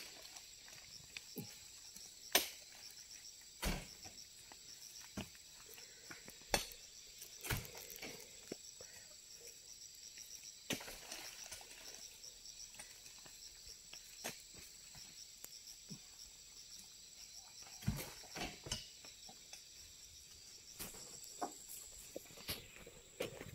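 Scattered dull thuds and knocks of oil palm fruit bunches being hooked with a pole and thrown up onto a loaded truck, a few at a time with gaps between. Under them runs a faint, steady, high insect drone.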